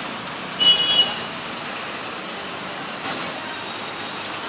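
Steady street traffic noise. About two-thirds of a second in comes a brief high-pitched squeal with a hiss, and just after three seconds a short sharp high blip.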